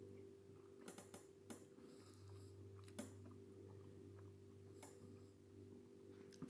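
Near silence: a faint steady hum, broken by a handful of soft clicks, about five of them.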